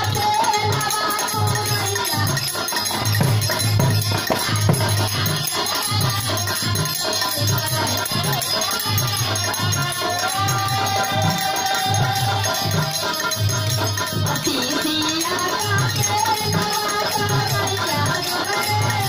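Live Indian folk song: a woman singing through a PA microphone over a steady drum beat of about two beats a second and a constant rattling hand percussion.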